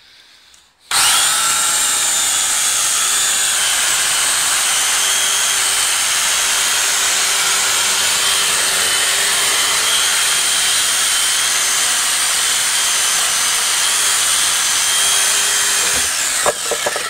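DeWalt DW390 electric alligator saw starting suddenly about a second in and running steadily at full speed while its blades cut through a wooden board, then stopping shortly before the end.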